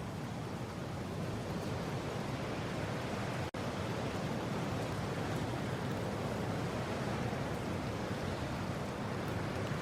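Steady rushing mountain wind, a dense, even noise weighted toward the low end. It drops out for an instant about three and a half seconds in.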